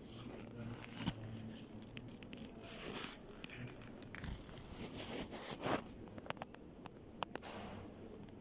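Handling noise: scattered light clicks and rustles from a handheld phone and clothing while walking, over a faint steady low hum.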